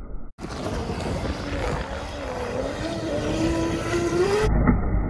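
Brushless electric motor of an RC speedboat (Leopard 2000KV) whining as it runs at speed over waves, its pitch dipping and then climbing with throttle. The sound cuts in sharply just after the start and cuts off about half a second before the end, giving way to a muffled low rumble.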